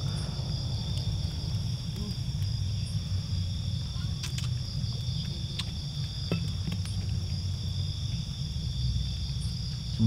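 Crickets chirping in a steady, continuous high drone over a steady low rumble, with a few faint snaps from the campfire.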